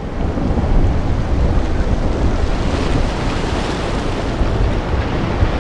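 Loud rumbling noise of a logo-sting sound effect, heaviest in the deep lows, swelling up over the first second and then holding steady.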